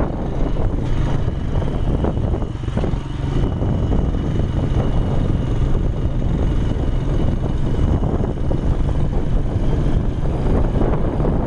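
Engine of an off-road vehicle running steadily while driving across sand, mixed with wind rushing over the microphone.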